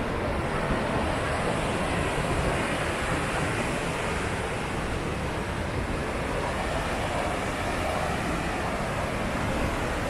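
Steady rush of a waterfall's falling water, an even noise that holds without breaks.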